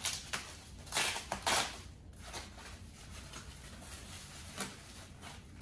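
Packing paper rustling and crinkling as a part is unwrapped by hand, in a few loud bursts during the first two seconds, then softer handling with a light click near the end.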